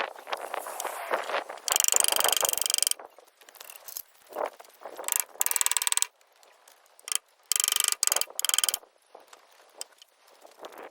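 Power tool, most likely a power driver, running in three bursts of about a second each with a fast, even rattle. Short knocks and handling noises fall between the bursts.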